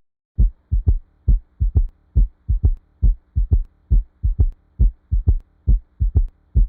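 Recorded heart sounds in a three-beat gallop rhythm, about 70 beats a minute. Each cycle is a low thump followed about a third of a second later by two thumps close together: the first and second heart sounds with an added third sound just after the second, the pattern of an S3 gallop. A faint steady hum lies underneath.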